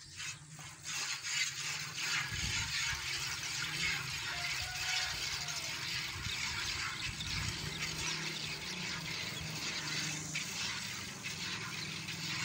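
Hand milking a cow into a steel bucket: a rapid, steady run of milk squirts hissing and splashing into the pail.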